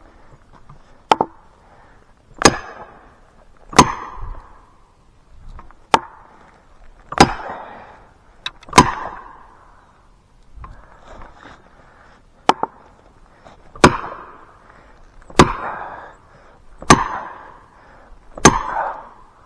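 Steel felling wedges being driven into the back cut of a spruce with repeated heavy blows, about eleven strikes, mostly one every second and a half, with a brief pause midway. The wedges are being driven to tip a hard-leaning tree against its lean.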